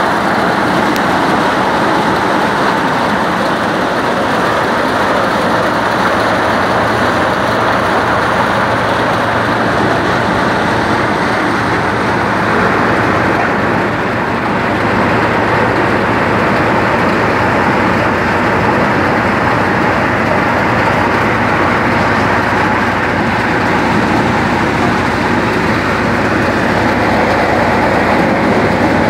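Tractor-driven maize thresher running: a loud, steady mechanical din of the tractor's diesel engine held at working speed, together with the whirring and rattling of the threshing drum and sieves.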